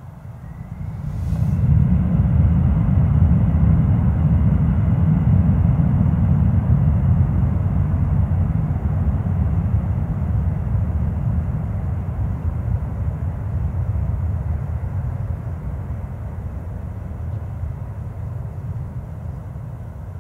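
Bombardier CRJ regional jet's two rear-mounted turbofans spooling up with a faint rising whine, then running loud and steady at take-off power, the sound heaviest in the low end. It fades slowly as the jet moves away down the runway.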